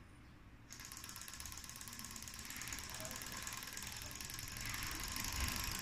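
Small DIY Stirling-engine model car running: a fast, even mechanical clatter starts abruptly about a second in and grows gradually louder.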